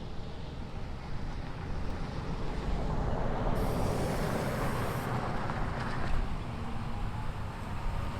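Road traffic: a motor vehicle passes, swelling in the middle and then fading, over a steady low rumble.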